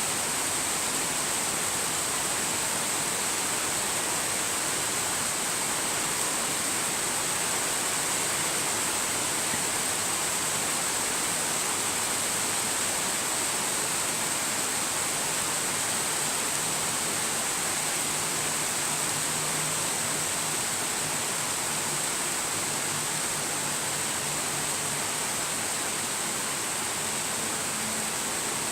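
Steady rain, an even hiss that holds the same level throughout, with no single drops standing out.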